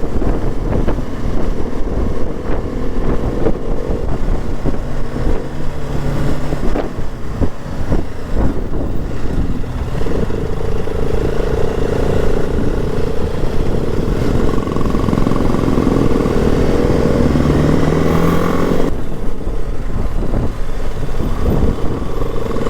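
Single-cylinder engine of a BMW G 310 GS motorcycle running under way. Its note rises and falls with the throttle, holds steady for a few seconds midway, and drops abruptly near the end.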